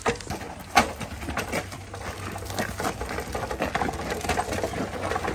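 Hand truck loaded with a steel well pressure tank rolling over a gritty asphalt driveway, its wheels crunching and the load rattling in irregular clicks and knocks.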